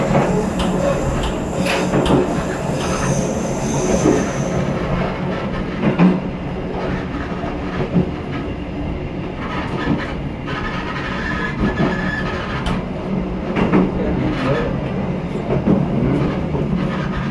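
Train wheels running on curving track, with a steady rumble and a knock about every two seconds. A high wheel squeal runs through the first four seconds and comes back in a lower pitch past the middle: wheel flanges squealing on the tight curves.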